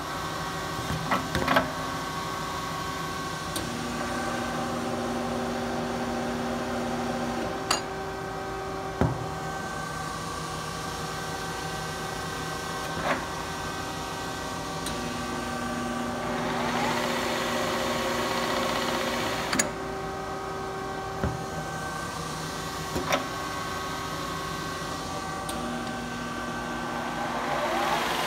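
Kearney & Trecker 205 S-12 horizontal milling machine running under power, with a steady whine of several tones from its drive gearing. A second, lower drone comes in three times for a few seconds each, and there are several sharp clunks.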